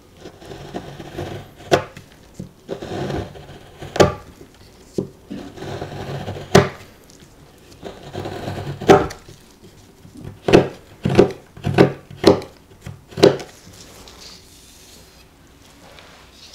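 Chef's knife shaving a block of dark couverture chocolate on a cutting board: rasping scrapes as the blade is drawn down the block, each ending in a sharp knock of the blade on the board. The knocks come quicker in the second half, then taper off near the end.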